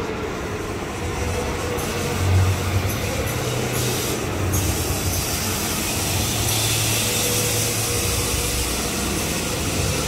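Steady rumbling noise of a spinning amusement ride in motion, with a low hum that swells a couple of seconds in.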